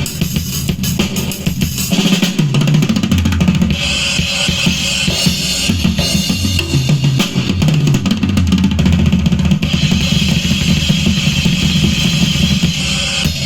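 Music with a heavy drum-kit beat, bass drum and snare to the fore and strong bass, played loud through a homemade amplifier and speaker in a sound test. The upper range fills out about four seconds in.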